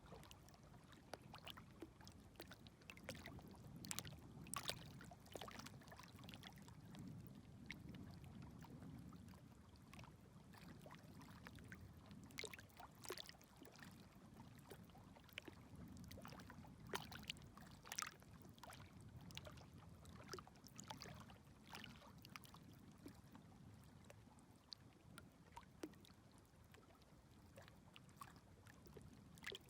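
Very small waves lapping gently at the shore, a faint low wash that swells and eases every few seconds, with scattered small clicks and splashes of water.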